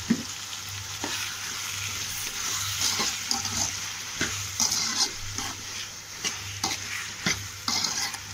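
Tomatoes and onions sizzling in hot oil in a kadai while a metal ladle stirs them, scraping and clicking against the pan every second or so.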